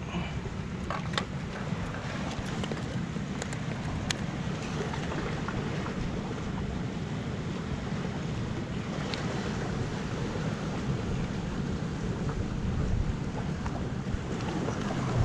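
Steady wind rumbling on the microphone over the wash of sea waves against a rocky shore, with a few sharp clicks in the first few seconds.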